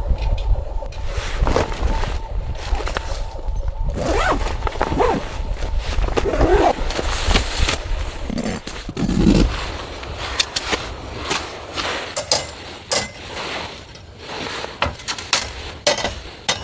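A low rumble, then scraping and a quick run of sharp clicks and knocks in the second half.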